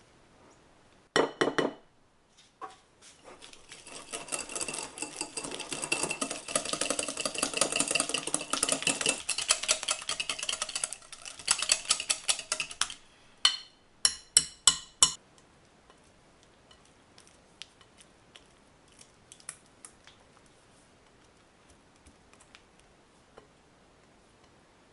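Silicone spatula working softened butter in a glass mixing bowl, loosening it before the dry ingredients go in. A short cluster of knocks about a second in is followed by some ten seconds of fast, rhythmic scraping and clacking strokes against the glass, then four sharp knocks and a few faint scrapes.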